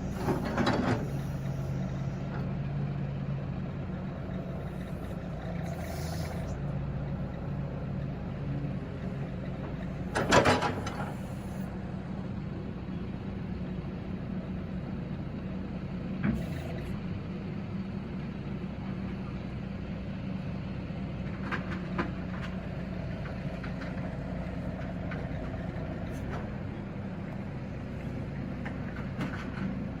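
Caterpillar 313D CR excavator's diesel engine running steadily. There is one loud knock about ten seconds in and a few fainter clicks later.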